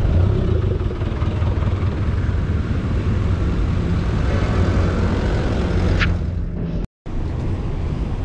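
Steady rumble of wind on the microphone and road traffic during a bicycle ride through city streets, with a sudden brief dropout about seven seconds in.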